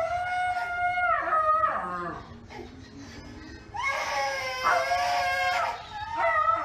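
A toddler crying while a husky-type dog sitting beside her howls along: long held, wavering wails in two long stretches with a quieter gap in the middle, and a short one near the end.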